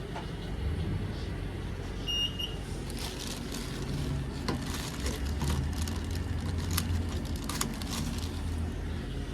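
Steady low rumble of road traffic, with a short high beep about two seconds in, followed by a run of sharp clicks and rattles over the next several seconds.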